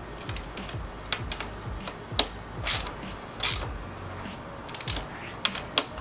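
Hand ratchet clicking as it tightens the clutch lever perch clamp bolts on a motorcycle handlebar. The clicks come irregularly in short bursts, a few at a time, with pauses between strokes.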